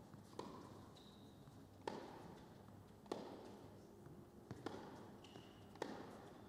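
Tennis ball being struck back and forth in a rally: sharp racket hits and bounces on an indoor hard court, about one every second and a half, each with a short echo.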